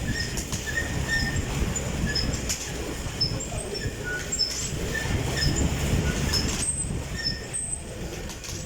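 Fan exercise bike running with a low, uneven whoosh that swells and eases. Short high chirps come in on and off at irregular times.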